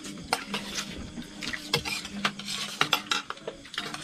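Spoons and forks clinking and scraping against plates as people eat, in many short irregular clicks.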